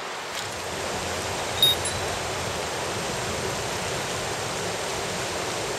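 Fast, shallow river current rushing over stones, a steady even noise. A brief sharp high-pitched click about a second and a half in.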